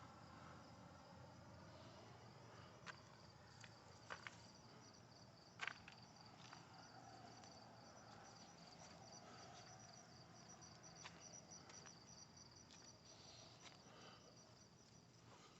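Faint, steady high-pitched insect chirring, with a few faint clicks scattered through it, the sharpest about five and a half seconds in.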